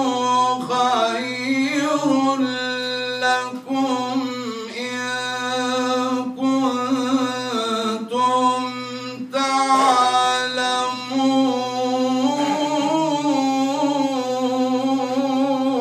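A man chanting the Quran in melodic recitation. He holds long, ornamented notes that waver up and down in pitch, with a few short breaths between phrases.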